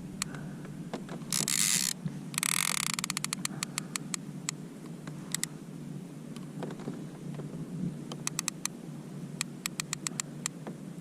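Fishing reel being cranked in with a fish on the line, clicking rapidly in runs, with two short buzzing bursts about one and a half and two and a half seconds in.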